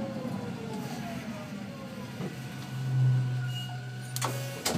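Electric tram's traction motor whine falling steadily in pitch as the car slows, then a steady low hum from about three seconds in, ending with two sharp clicks near the end.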